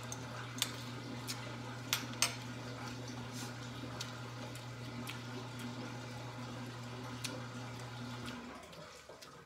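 Washing machine running its rinse and spin cycle: a steady hum that stops near the end. A few light clicks sound over it early on.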